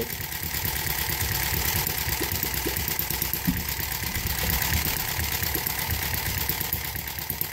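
Homemade miniature vertical-twin four-stroke engine running fast and steady on white gas, with its ignition timing being shifted by hand. It gets somewhat louder in the middle of the adjustment and eases back near the end.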